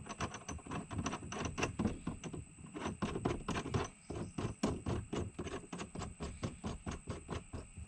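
Rapid, irregular small clicks and ticks, about five a second, from threaded metal shifter parts being turned and worked by hand as the extension is screwed onto the shift lever.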